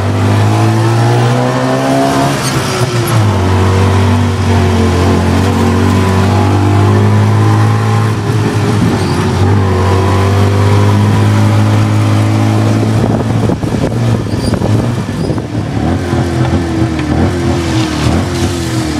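Tuk tuk engine running loud and close from inside the passenger cabin, its pitch rising and falling as the tricycle speeds up and slows.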